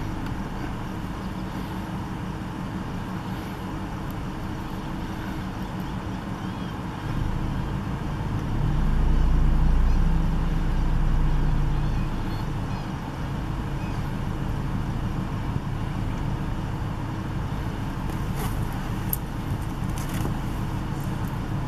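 Motor vehicle engine idling steadily with a low, even hum, swelling louder for a few seconds near the middle.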